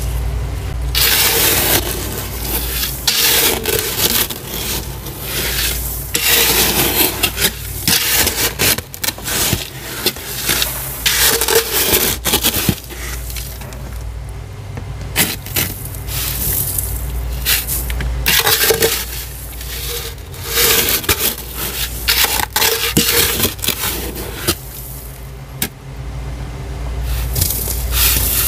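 Thick, week-old freezer frost being scraped and scooped out in repeated long, gritty strokes, over a low steady hum.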